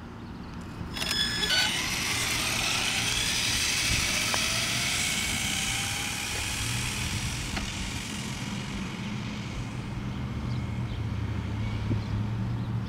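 Electric RC car on a 4S LiPo (OFNA DM-1) pulling away hard: its motor whine starts about a second in and rises in pitch over a hiss of tyres on asphalt. The sound then fades as the car speeds into the distance.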